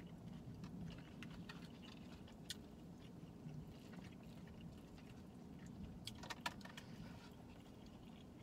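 Faint chewing and light clicks of plastic forks against takeout food bowls over a low steady hum, with a brief cluster of scrapes and clicks about six seconds in.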